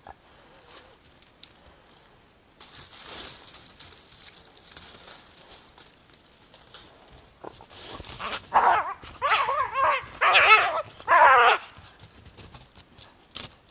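Wolf and lynx in a fight: rustling sets in about three seconds in, then about four loud, wavering snarling calls in quick succession between about eight and eleven and a half seconds in.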